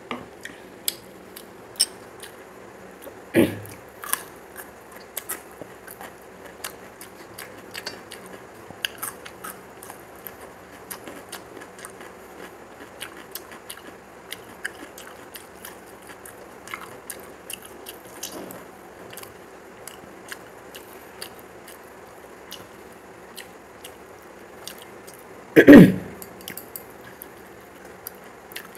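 Close-miked eating sounds: chewing and crunching, with small wet clicks of fingers mixing rice and curry on a metal plate. A knock about three seconds in, and one loud clunk of metal dishware near the end.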